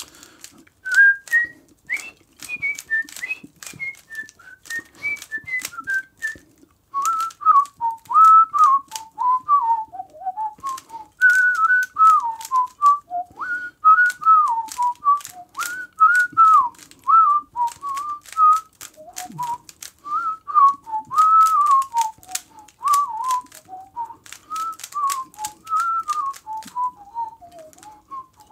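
A person whistling a wandering tune, with a short break about six or seven seconds in, over rapid clicking of a Rubik's Cube as its faces are twisted.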